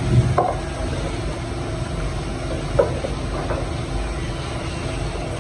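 Wooden spoon stirring chopped carrots and peppers in a pot, with a few short knocks of the spoon against the pot, over a steady low hum.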